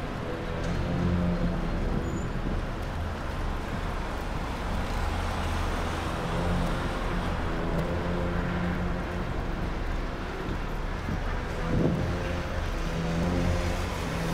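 City street traffic noise, with a vehicle engine running at a low, steady hum that fades in and out over the general hiss of the street.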